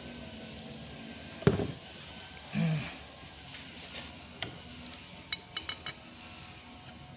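Steel parts of a Bosch diesel injection pump's timer clinking together as the metal cover plate is handled and fitted onto the oil-filled timer housing: a knock about a second and a half in, then a quick run of four light, ringing clinks about five seconds in.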